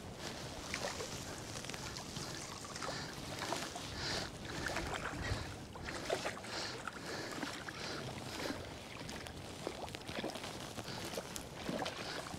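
A hooked rainbow trout splashing and thrashing at the water's surface close to the bank as it is played in on a fly rod: irregular small splashes over a steady wash of noise.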